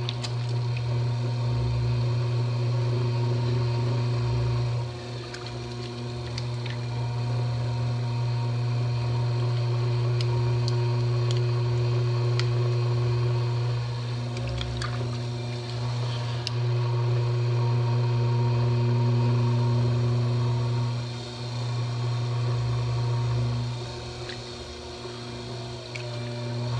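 Electric potter's wheel running with a steady motor hum, while wet hands slide over a large mound of clay as it spins.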